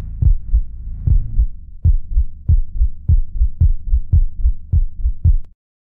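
Heartbeat, a fast, even run of low thumps about three a second over a low hum, that stops dead near the end.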